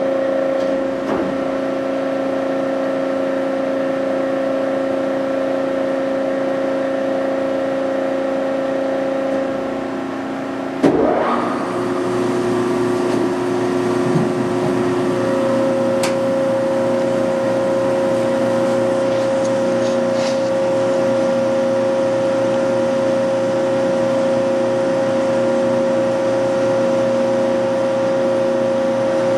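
Hyd Mech H-40 horizontal bandsaw running under power, a steady machine hum with several held tones. About 11 seconds in there is a sharp clunk, and the hum's pitch changes after it.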